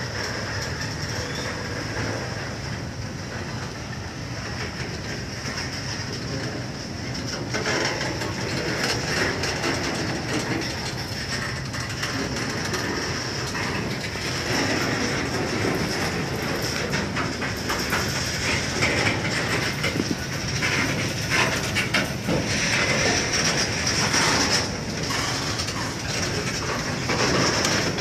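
Container flat wagons of a freight train being shunted roll past at track level: a steady rumble of steel wheels on the rails with clacking over the rail joints. It gets louder about eight seconds in.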